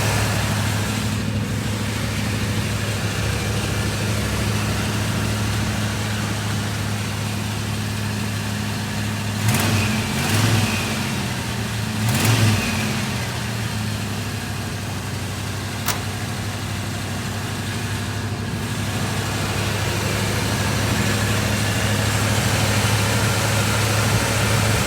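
Chevrolet Monte Carlo SS engine idling steadily, revved briefly twice, about ten and twelve seconds in. A single sharp click sounds a few seconds after the second rev.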